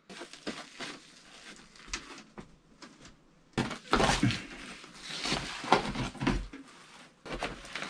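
Artificial grass mat being peeled back off the plastic grid tray of a wooden-framed dog toilet: rustling and scraping with light knocks, starting about three and a half seconds in. Before that there are only a few faint clicks.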